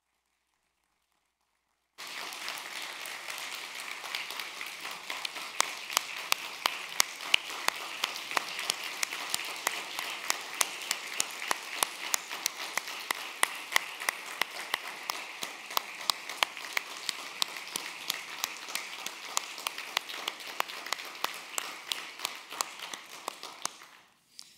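Congregation applauding, with sharp single claps close to the microphone standing out. The applause starts suddenly about two seconds in and cuts off suddenly near the end.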